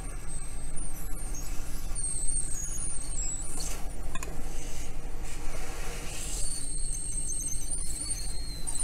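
Hot air rework station blowing steadily during BGA solder-ball reballing, with a thin high whine that wavers in pitch.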